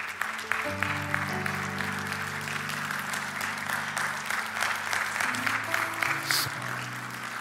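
A congregation applauding over soft background music of long held chords. The clapping thins out toward the end.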